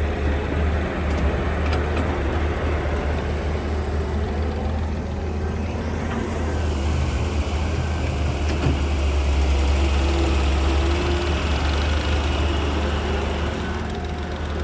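Hyundai 130W wheeled excavator's diesel engine running with a steady low drone, growing a little louder partway through.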